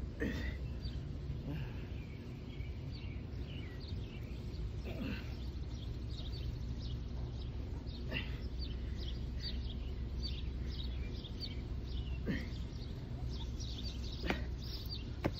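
Small birds chirping in many short, high calls over a steady low outdoor rumble, with a handful of short sharp sounds, the loudest two near the end.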